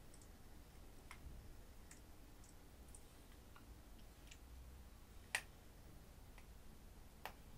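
Near silence with faint, irregular clicks about once a second; the sharpest comes about five seconds in and another near the end.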